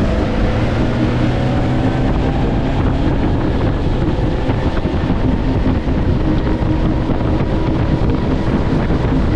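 Outboard motor driving a fishing boat under way, its pitch climbing over the first couple of seconds and then holding steady, with wind buffeting the microphone.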